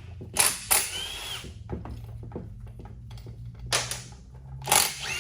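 A handheld power tool, a drill or driver, runs in three short bursts, its pitch rising and falling as the motor spins up and down, backing out bolts during the teardown of a Dodge 273D transfer case.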